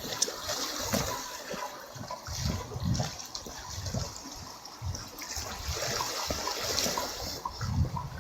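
Small sea waves lapping and splashing at the shore, swelling and ebbing unevenly.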